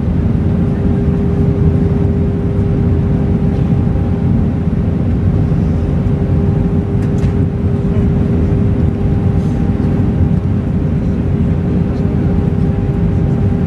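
Airliner cabin noise during the approach to landing: the steady rush of the jet engines and airflow, heard from a window seat over the wing, with a steady drone-like tone running through it.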